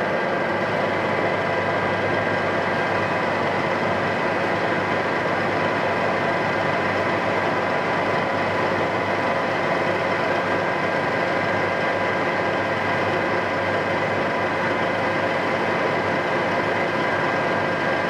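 Mexpol TUB 560 center lathe running idle at a steady spindle speed, the empty chuck turning with nothing being cut. A steady whine of several high tones rides over a constant motor and headstock hum.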